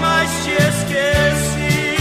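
Sertanejo music: a song with a steady bass line under a melodic lead.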